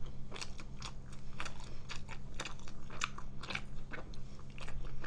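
Close-miked chewing of a mouthful of thick, sauce-coated instant jjajang noodles, with irregular wet clicks of the mouth several times a second.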